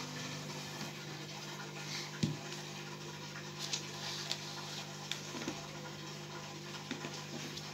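Aquarium equipment humming steadily in a low tone, with a faint hiss and scattered small ticks.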